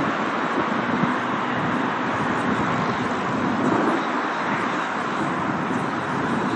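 Lockheed Martin F-22 Raptor's twin jet engines at takeoff power: a steady, loud rushing jet noise with no change in pitch.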